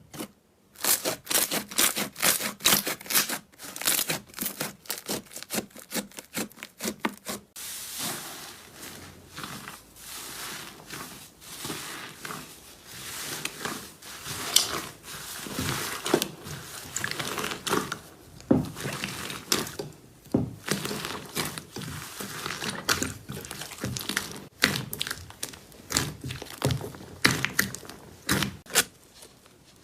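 Slime being squished and stretched, giving a dense run of fast, irregular clicks, pops and crackles, with a brief break about seven and a half seconds in.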